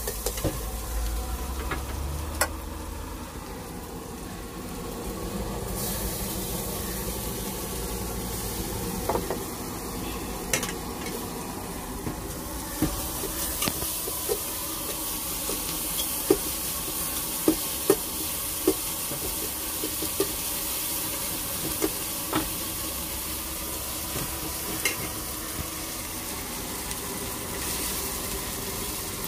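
Food sizzling in a frying pan while being stirred, with sharp, irregular knocks of a utensil against the pan.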